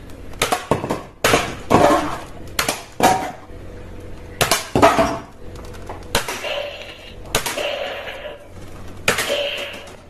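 A string of sharp clacks and knocks, about a dozen at irregular intervals. From about six seconds in, each one is followed by a short ringing tone lasting about a second.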